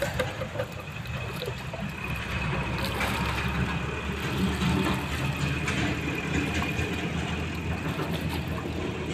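Steady low engine hum, with water sloshing and lapping as a basket of jujube fruit is swished and rinsed in pond water.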